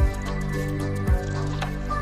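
Background music: sustained tones over a soft beat, with a low drum thump at the start and again about a second in.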